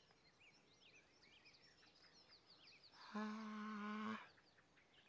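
Faint birds chirping and calling. About three seconds in, a steady humming tone at a single pitch sounds for about a second and stops.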